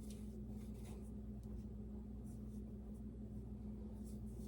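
Faint, soft scraping and rubbing of dumpling dough being handled, pressed onto a floured board and worked off the hands, over a steady low hum.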